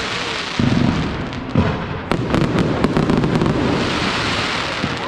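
Fireworks going off: several sharp bangs in the first two seconds over a continuous rumble, then a stretch of rapid crackling.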